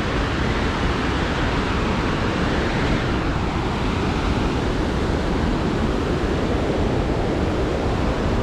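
Steady rush of a mountain creek's whitewater cascade, an even unbroken noise.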